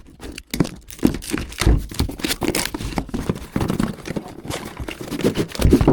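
Irregular knocks and clatter of hard objects being handled, with no steady motor whine.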